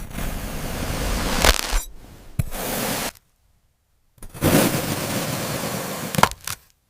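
Kinetic sand being cut and squished: a gritty, crunching hiss with a few sharp crackles, stopping dead for about a second partway through before starting again.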